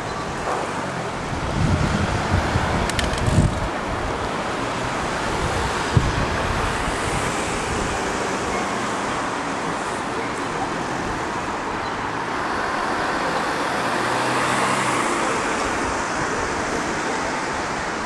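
Street traffic noise: a steady wash of passing cars, with one vehicle swelling past about two thirds of the way through, and low thumps of wind on the microphone in the first few seconds.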